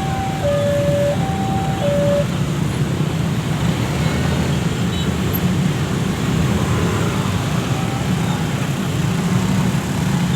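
Heavy engine running with a steady low rumble. For the first two seconds an electronic warning signal alternates between a high and a low tone, each held for under a second.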